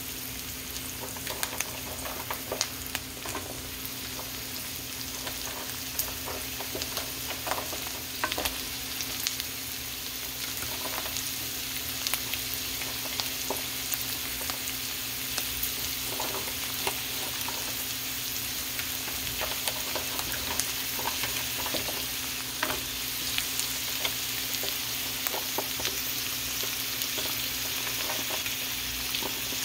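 Diced carrots, onion and garlic sizzling in a hot oiled wok, a steady frying hiss, with irregular clicks and scrapes from a slotted spatula stirring them.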